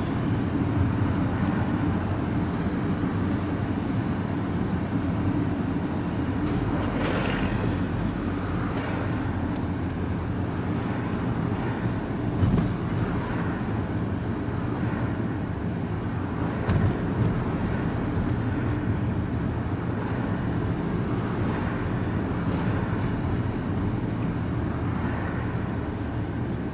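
Van engine running steadily, a low even hum with a few faint knocks.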